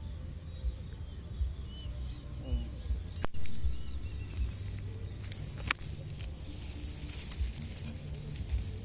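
A freshly caught fish lands on the grass with one sharp knock about three seconds in, followed by a softer click near six seconds. Through the first half a quick series of short rising bird chirps sounds, over a low rumble of wind and handling on the microphone.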